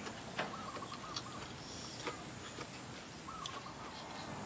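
Birds calling faintly: two short wavering calls, with a few light clicks between them.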